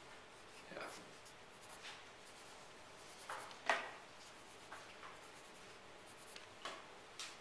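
Graphite pencil sketching on paper: short, separate scratching strokes, the firmest one about halfway through.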